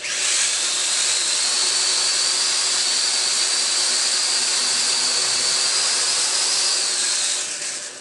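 Toy quadcopter's small motors and propellers spinning up abruptly and running as a steady, high-pitched whine, the pitch climbing quickly at first and then holding. The whine falls away near the end.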